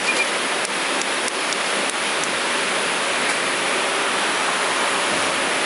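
Steady hiss-like noise of workshop machinery, with a brief electronic beep just after the start and a few faint ticks.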